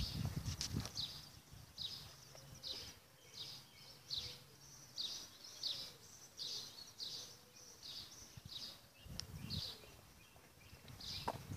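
A small bird chirping over and over, short high notes that slide downward, about two a second. A low rumble sits under it at the start and again about nine seconds in.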